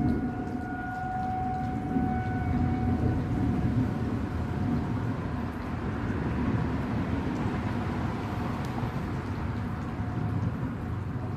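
Outdoor tornado warning siren, sounding for a test, holding one steady tone that fades out in the first few seconds. After that a steady low rumble carries on, with a faint high tone.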